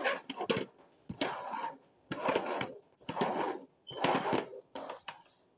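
Upturned plastic bowls being slid and scraped around on a wooden tabletop in about five short bursts, roughly one a second, with knocks as they are set down.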